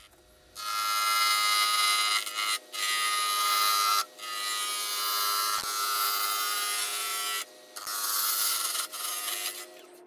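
Lathe tool cutting a spinning cherry blank on a Laguna 15/24 wood lathe, rough-turning it round: a loud, rough hiss of shavings coming off, over the lathe's steady whine. The cutting stops briefly twice and once for about half a second near the end.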